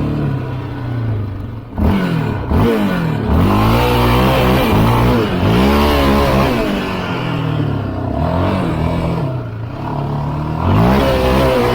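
An off-road vehicle's engine revving hard over and over, its pitch climbing and falling with the throttle roughly once a second, with a brief dip just before two seconds in.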